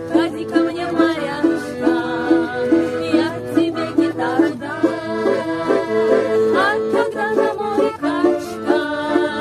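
Ensemble music with an accordion over a steady, regular rhythmic accompaniment.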